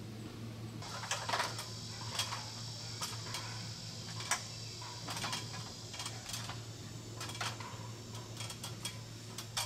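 Footsteps climbing an aluminium ladder: irregular light taps and clanks of shoes and the antenna on the rungs, roughly one a second, over a steady high-pitched drone that comes in about a second in.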